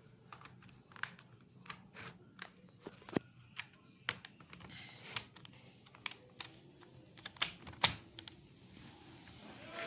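Sharp, irregular plastic clicks and taps, about one or two a second, from an HP laptop being handled as it is put back together for testing after its RAM has been reseated.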